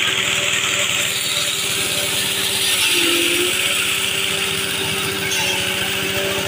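Forage chopper powered by a small red stationary diesel engine, running steadily while leafy branches are fed into it and shredded: a continuous chopping and shredding noise over the engine's fast, even beat.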